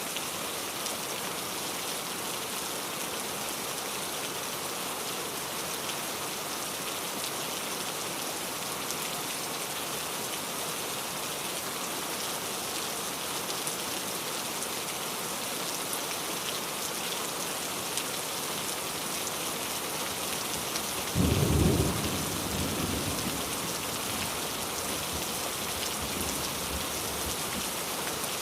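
Steady heavy rainfall, with a sudden thunderclap about three-quarters of the way through that rumbles off over a few seconds.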